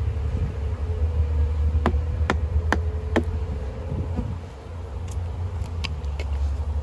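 Honey bee swarm buzzing on a log hive: a faint steady hum that fades about four seconds in, and a few sharp ticks, over a loud, steady low rumble.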